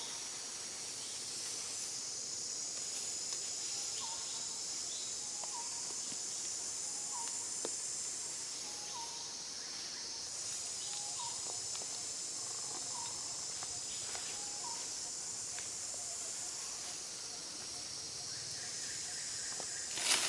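Forest insects buzzing in a steady high-pitched drone that fades briefly about halfway through, with a short call repeating about once a second.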